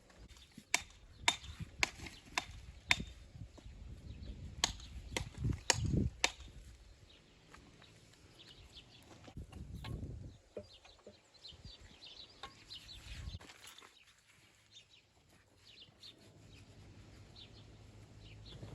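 Hammer striking stone: about ten sharp knocks, roughly two a second, over the first six seconds, then a few faint chirps.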